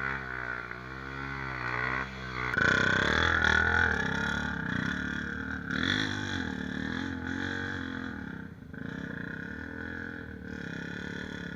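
Dirt bike engine revving up and down over and over on a rocky trail climb, getting louder about two and a half seconds in.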